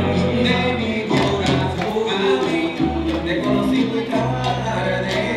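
Salsa music playing: a singing voice over a steady bass line and hand percussion.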